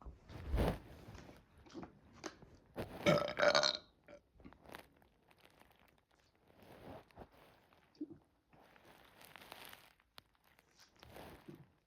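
A person burping: a short low burp about half a second in, then a louder, pitched burp about three seconds in, with softer mouth noises between.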